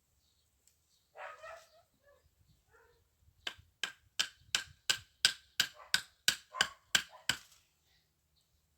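A rapid run of about a dozen sharp knocks, roughly three a second, starting about three and a half seconds in and stopping near the end, each with a faint ring like a tool striking. A short rustle comes about a second in.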